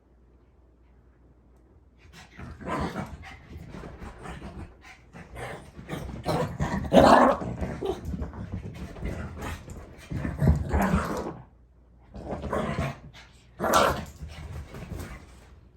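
Dog growling and barking in irregular bursts, starting about two seconds in, with a short lull before the last bursts: rough growls and barks typical of dogs at play.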